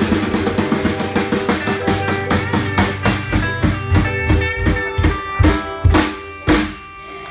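Live band of upright bass, ukulele, mandolin, guitars and drum kit playing the last bars of a song. About halfway through, the playing breaks into a run of separate full-band hits with drum accents, spaced further apart toward the close.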